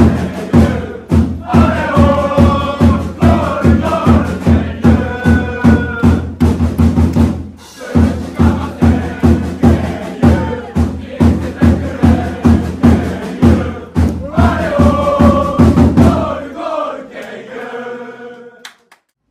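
Crowd of football supporters singing a player's chant in unison over a drum beating steadily about twice a second. Near the end the drum stops and the chant fades out.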